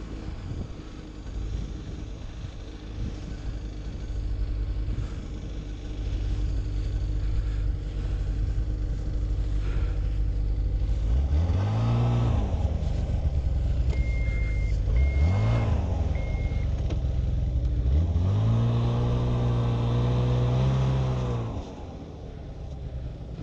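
Snowmobile engine rumbling low, then revved hard three times as the sled is worked in deep, wet snow: two short revs that rise and fall, and a longer held rev of about three seconds that cuts off sharply. Three short high beeps sound between the revs.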